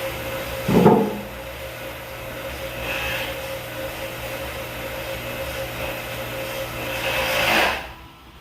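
A small electric motor running with a steady hum, a single loud knock about a second in, then the motor swells briefly and cuts off near the end.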